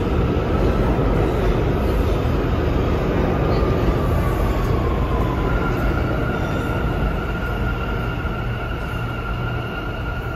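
New York City subway train running on the far track, its rumble gradually fading. A thin whine falls slightly in pitch a few seconds in, then a steady high tone holds through the rest.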